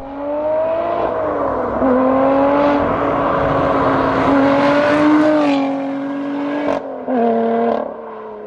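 Lotus Exige sports car accelerating hard up the road, its engine note held high and dropping back at each gear change. About two-thirds of the way in it cuts off sharply, comes back briefly, then falls quieter.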